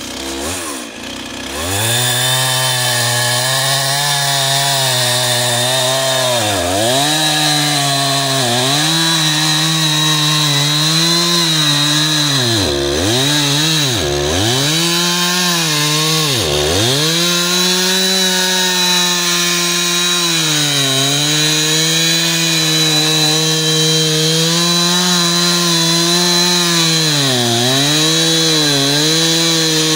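Stihl two-stroke chainsaw revving up to full throttle about two seconds in and running flat out through a cut. Its pitch sags briefly again and again as the chain bogs down in the wood.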